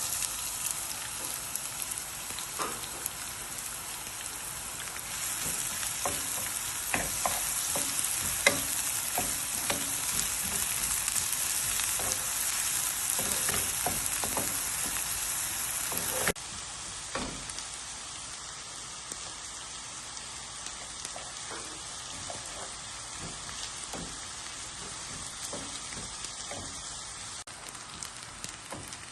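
Food sizzling in a hot frying pan as it is stirred, with a utensil clicking and knocking against the pan. The sizzle drops to a quieter level abruptly a little past halfway.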